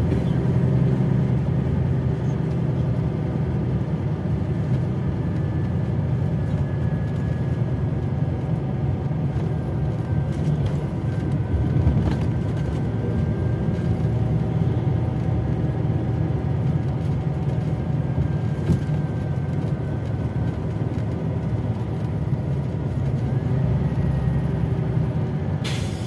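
Cabin noise of a Scania OmniLink I city bus driving along: a steady low rumble from the engine and tyres, with a faint whine that slowly drifts in pitch. There is a sharper knock about twelve seconds in.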